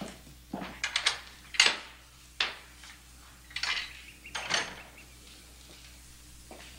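Footsteps on wooden boards: a handful of heavy, uneven steps with knocks and a few sharp clicks about a second in, stopping near the end.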